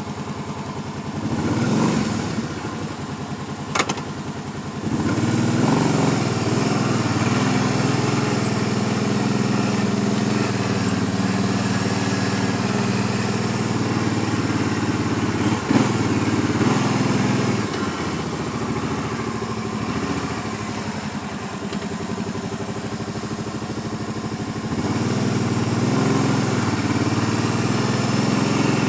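Kawasaki Brute Force 750 ATV's V-twin engine running, low at first, then picking up about five seconds in as the quad rides on. It eases off for a few seconds past the middle and picks up again near the end, with a single sharp knock about halfway through.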